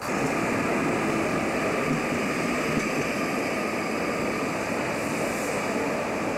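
Old four-axle tram with trailer running past at close range: a steady, dense rolling noise of wheels on rails and traction motors.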